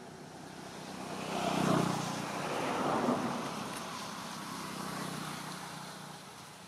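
Engine noise of a passing motor vehicle, swelling to a peak about two seconds in and then slowly fading away.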